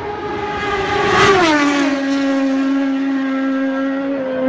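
Racing motorcycle flying past at high speed on a steady throttle: a high engine note that drops sharply in pitch as it passes about a second in, then holds at the lower pitch as it goes away.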